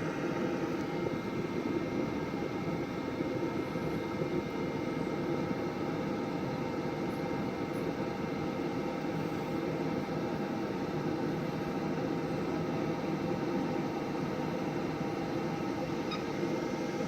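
Pellet grill's combustion fan running with a steady hum and whir during startup, while the igniter heats the pellets to light them.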